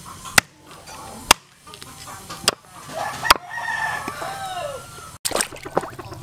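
A cleaver-like knife chopping meat and bone on a wooden chopping block: four sharp chops about a second apart. A rooster crows in the background midway through, and near the end water sloshes in a basin as the chopped pieces are washed.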